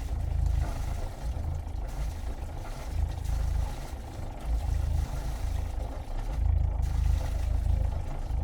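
Sailboat's inboard diesel engine running, heard from outside the hull, its wet exhaust splattering water. A deep, uneven rumble that swells and dips every second or two.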